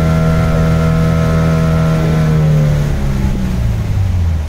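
Motorboat engine running steadily, then throttled back about three seconds in, its pitch stepping down as the boat slows on its approach to the jetty.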